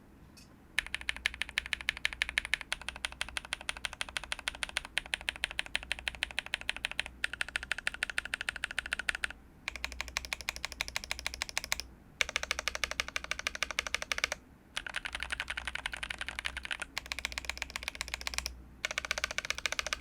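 Fast typing on a KBD67 V3 mechanical keyboard fitted with tactile switches, an FR4 plate, foam and GMK doubleshot ABS keycaps: a quick, even patter of keystrokes in several runs broken by brief pauses.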